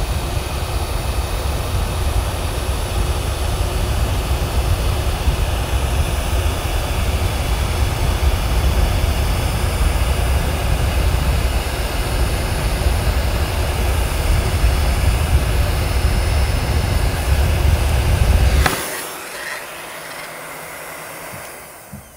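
Electric heat gun blowing steadily while it shrinks heat-shrink tubing over a soldered RCA connector. It cuts off sharply near the end, leaving a fainter sound that fades away.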